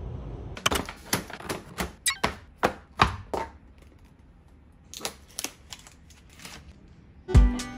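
A series of irregular sharp taps, in two runs with a lull between.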